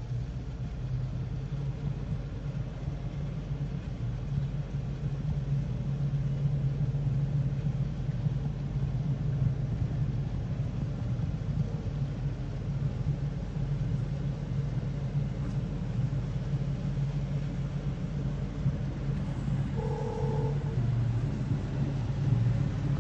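Steady low rumble of a motor vehicle running, with a brief higher tone near the end.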